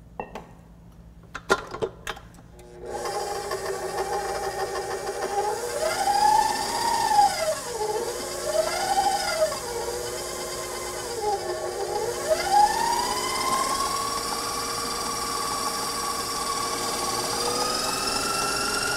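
KitchenAid Professional HD stand mixer with a flat beater, creaming butter and dark brown sugar. After a few clicks it starts up about three seconds in with a motor whine that swoops up and down in pitch several times, then settles into a steady, slightly higher whine at medium-high speed.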